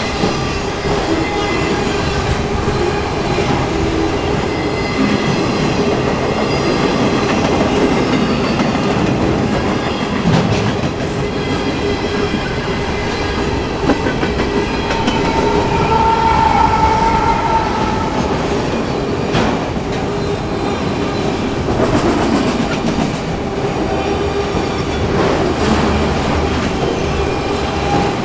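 Freight train's autorack and flatcar cars rolling past at speed: a steady rumble with the clickety-clack of the wheels on the rails.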